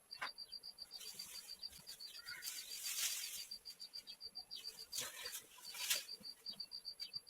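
Insect chirping in an even, rapid high-pitched pulse, several beats a second, throughout. It is joined by a swell of rustling noise around two to three seconds in and two sharp short rustles near five and six seconds.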